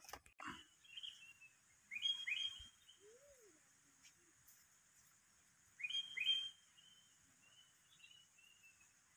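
A bird calling twice, about four seconds apart: each call is a quick pair of sharp, falling notes followed by a string of softer notes.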